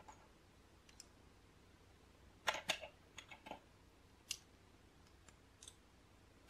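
Small plastic LEGO pieces clicking as they are handled and pressed together by hand: a quick cluster of clicks about two and a half seconds in, a single sharp click a little after four seconds, and a few fainter ones otherwise, over a faint steady hum.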